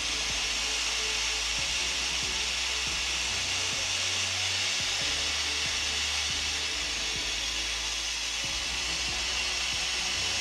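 Quick 861DW hot air rework station blowing a steady hiss of hot air while desoldering a memory chip from a graphics card.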